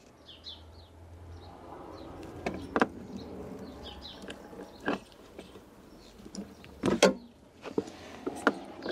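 Insulation being stripped off the cut ends of a car wiring-loom wire: a handful of sharp clicks and snaps from the tool and wire, the loudest about seven seconds in.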